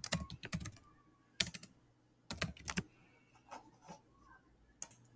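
Typing on a computer keyboard: quick runs of key clicks in short bursts, with pauses between them.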